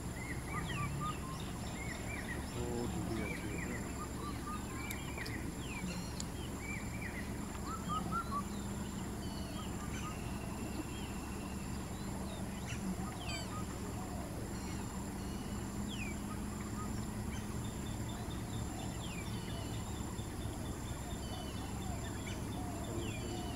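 Forest birds calling: many short chirps and whistled notes scattered throughout, over a steady low background noise.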